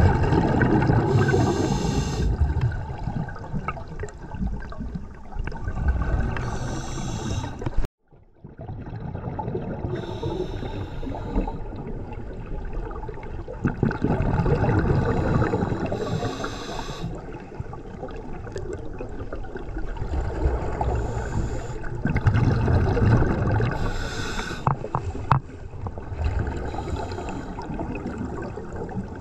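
Scuba regulator breathing heard underwater: a hiss on each inhale alternating with a low gush of exhaled bubbles, every few seconds. The sound drops out suddenly for a moment about eight seconds in.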